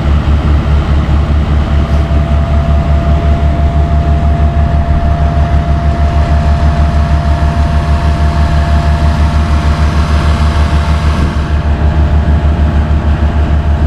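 Heavy diesel engine running steadily close by, with a strong low rapid pulsing, and a thin steady whine held from about a second in.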